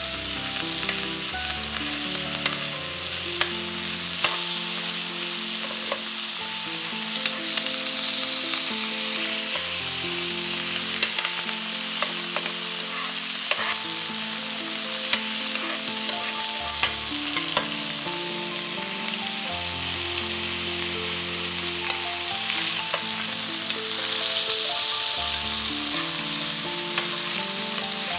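Butterflied chicken breasts sizzling in butter and oil with garlic and thyme in a frying pan, while a metal spoon bastes them and clicks against the pan now and then.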